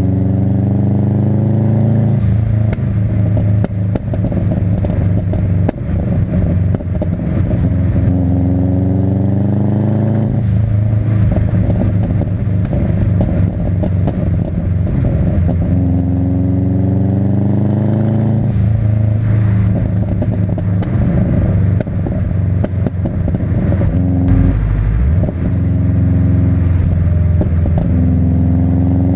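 Subaru Impreza's turbocharged flat-four engine revving up four times, each rise followed by a run of crackling exhaust pops and bangs as the revs fall away. The engine is misfiring, which the owner puts down to worn spark plugs.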